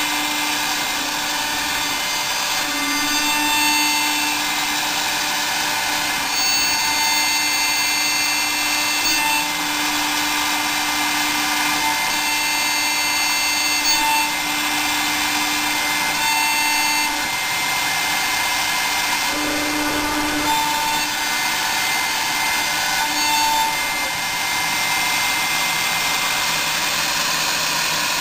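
CNC milling machine with a high-speed spindle and a small HSS end mill, milling aluminium under coolant spray. A steady whine of spindle and cutting runs throughout, with a lower hum that comes and goes.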